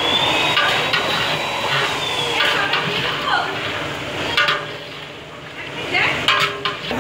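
Kitchen cooking noise: metal utensils clanking against pots, a few sharp knocks in the second half, over a steady background with voices.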